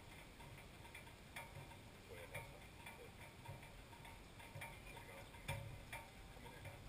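Near silence with faint, irregular ticks about once a second.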